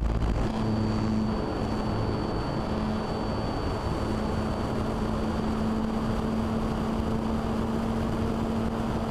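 RC model airplane's motor and propeller running steadily at cruise, heard from a camera on the plane itself: a steady drone with a thin high whine over the rush of air.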